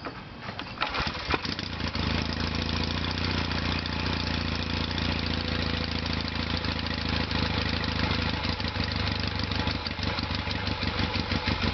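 1975 Yamaha XS650B's air-cooled parallel-twin engine kick-started from cold on choke. It catches on the first kick about a second in and then idles steadily.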